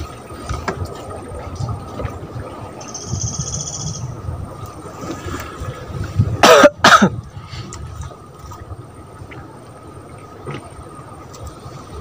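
A person coughs twice in quick succession about halfway through, each cough short and loud, over a low background rumble.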